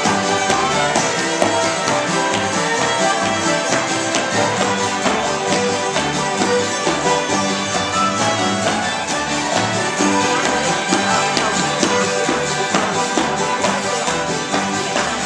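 Old-time string band jam playing a lively dance tune on fiddle and acoustic guitars, with dancers' shoes tapping and shuffling on a wooden floor.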